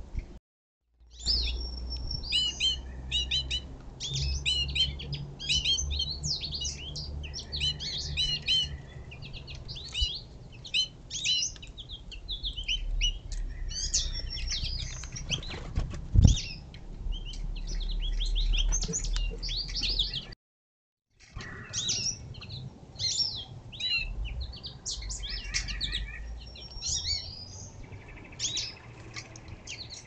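Several small songbirds chirping and calling over one another at a feeder, with wing flutters of birds coming and going over a low rumble, and one sharp thump about halfway through. The sound cuts out completely for a moment twice.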